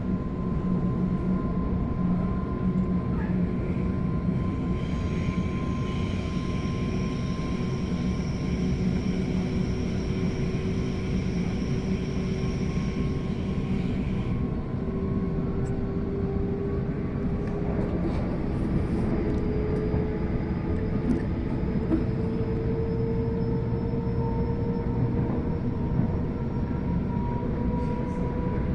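Sydney Trains Waratah electric train running, heard from inside the carriage: a steady rumble of wheels on track with a motor whine that rises slowly in pitch as the train gathers speed. A cluster of high, steady tones sounds from about five seconds in and cuts off suddenly about ten seconds later.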